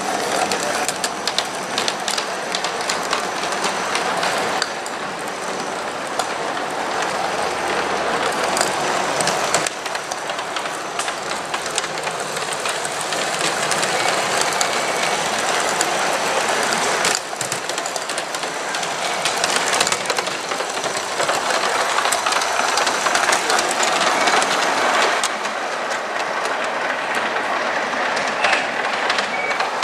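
Large-scale model steam train running on brass garden-railway track, its wheels clicking steadily over the rail joints. The sound changes abruptly a few times.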